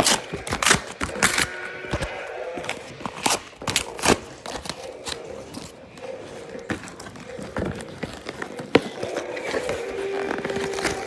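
Handling noise: irregular clicks, knocks and scrapes, as of a plastic toy and its packaging being handled.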